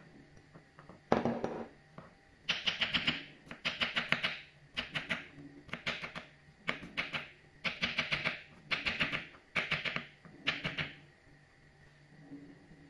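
Kitchen knife chopping peeled garlic cloves on a bamboo cutting board: about nine short bursts of rapid taps. About a second in, garlic cloves clatter from a glass bowl onto the board.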